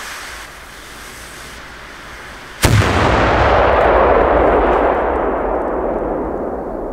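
A 500 g homemade Italian cipolla ground salute (flash-powder firework) goes off with a single sharp blast about two and a half seconds in, followed by a long rumble that fades over about four seconds.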